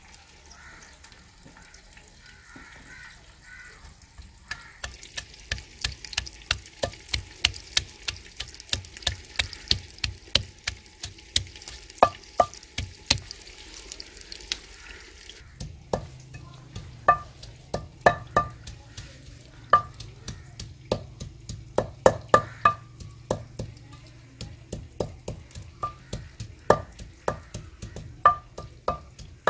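Long wooden pestle pounding garlic cloves into paste in a mortar: a steady run of dull thuds, about two a second, starting a few seconds in. For the first half, onions frying in oil hiss underneath.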